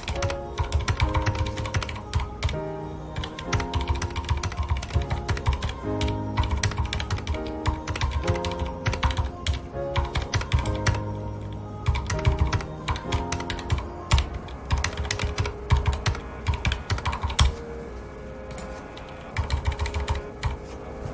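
Fast, continuous typing on a mechanical keyboard with red linear switches, keys clacking in quick runs with a short pause near the end, over background music with sustained melodic notes.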